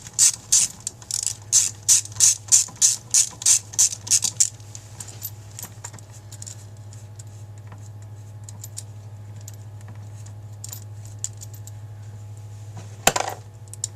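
Ratchet-like clicking, about three clicks a second for the first four seconds, then a few faint small clicks and one sharp click near the end. It is hand tools and small parts at work as the metering rods are taken out of a Carter AFB carburetor.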